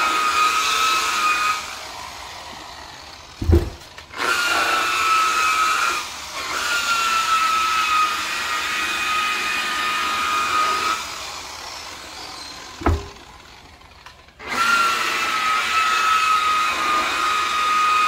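DeWalt variable-speed rotary buffer with a foam pad, running against a painted motorcycle tank while polishing it: a steady motor whine that wavers slightly in pitch under the pad's load. The whine stops and winds down twice, each pause holding one short low thump, then the buffer starts up again.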